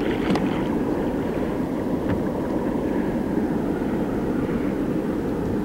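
Wind buffeting the microphone, a steady rumbling rush, with a couple of light knocks.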